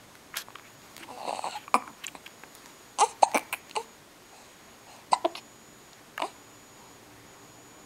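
Hiccups: short, sharp catches coming at uneven intervals, about a second or two apart.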